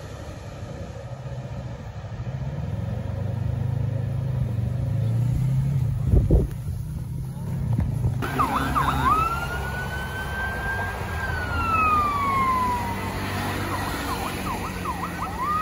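Jet airliner landing: a low engine rumble builds as it comes in on approach, with a brief low thump about six seconds in. Then the engines' whine rises, holds and slides down again over a few seconds as the plane rolls out on the runway, with short high chirps around it.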